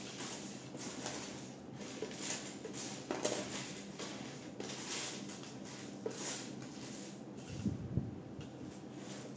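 Small plastic Lego bricks being handled, a light, irregular clicking and rustling, with a soft low knock about eight seconds in.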